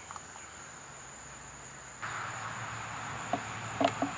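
Crickets shrilling in a steady high tone, with the background noise rising about halfway. A chicken clucks a few times near the end.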